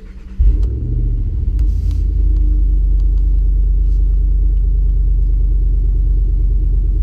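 2015 Ram 1500's 5.7L Hemi V8 heard from inside the cab with the windows halfway down, its exhaust unmuffled through a muffler delete and Y-pipe. The exhaust suddenly gets much louder about half a second in, then holds a steady, deep drone.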